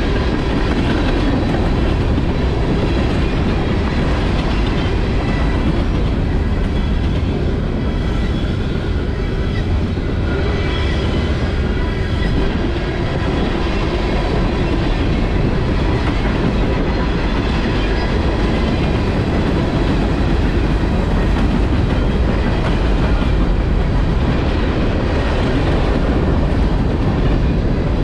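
Freight train of covered hoppers and tank cars rolling past, a steady rumble of steel wheels on rail.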